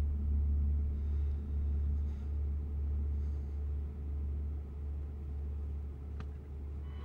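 Deep, steady rumbling drone of a horror film score, slowly fading, with a faint click about six seconds in.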